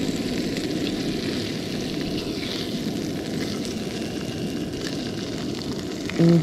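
Brown trout fillets frying in butter in a pan, a steady sizzle. A short voiced sound comes in just before the end.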